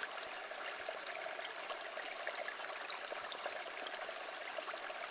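River water flowing and trickling steadily.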